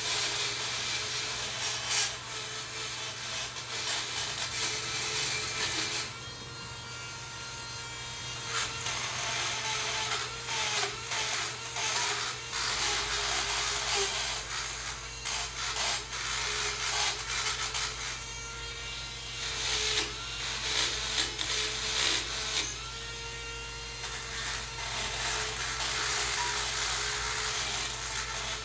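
Dremel rotary tool running, its bit scraping corrosion off brake caliper parts in uneven passes. The scraping eases off for a couple of seconds about six seconds in and again near the end.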